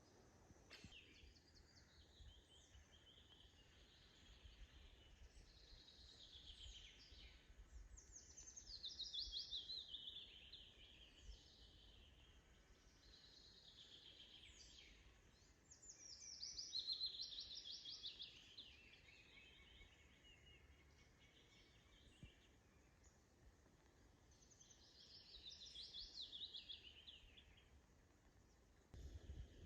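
A songbird singing faint, repeated, trilled phrases that fall in pitch, each lasting two or three seconds. Three louder phrases come at intervals of about eight seconds, with quieter song between them.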